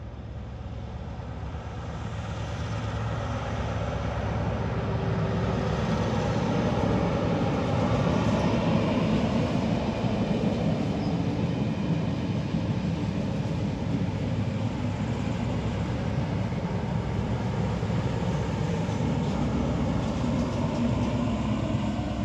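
A Colas Rail HST test train passing at moderate speed, powered by two Class 43 diesel power cars: engine noise and the rumble of the train on the rails. It grows louder over the first several seconds and stays loud while the train goes by.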